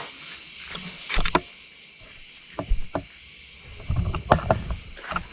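Scattered knocks and clicks of engine parts and tools being handled, over a steady faint high hum.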